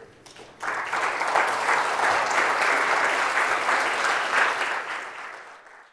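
Audience applauding. It starts about half a second in, holds steady, and fades out near the end.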